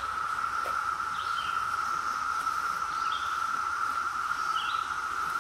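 A cicada chorus droning steadily at one pitch, with a bird giving a short two-note call three times over it.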